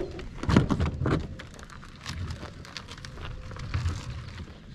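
Gravel crunching and crackling under a kayak cart's wheels and footsteps as a large kayak is lowered onto the cart. There are a few heavier knocks about half a second to a second in, over a low wind rumble.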